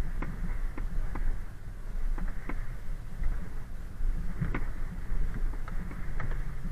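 Car driving on a rough unpaved road: a steady low rumble with irregular short clicks and knocks, one louder knock about four and a half seconds in.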